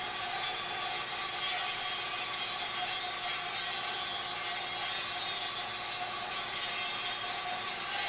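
Homemade vertical bandsaw sawmill cutting a slab off a wooden cant as the powered carriage feeds it through the blade, with a dust collector running alongside: a steady machine whir with a few constant hum tones.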